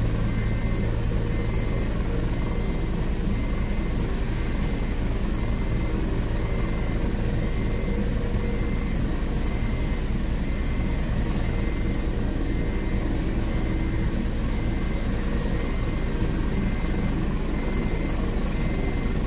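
Bell military helicopters running on the ground: a steady turbine and rotor drone. A high beep repeats about once a second throughout.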